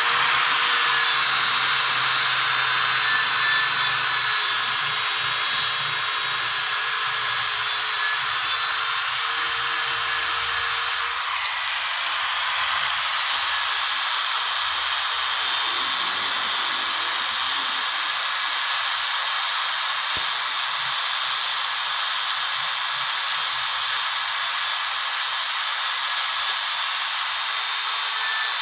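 Angle grinder with a sandpaper disc sanding a car's brake disc, running steadily with a high-pitched whine and hiss of abrasive on metal. The worn, dirty disc face is being resurfaced so the brake grips fully.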